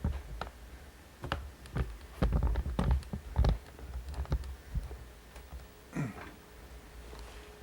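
Footsteps crunching through deep snow, irregular steps with low thumps from the camcorder jolting, thinning out in the second half.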